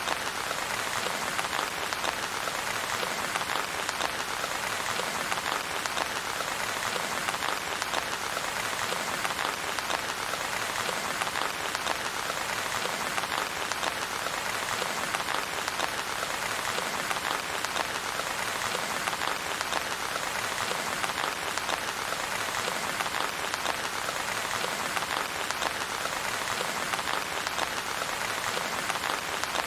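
Steady rain with a dense, even patter of drops and no thunder.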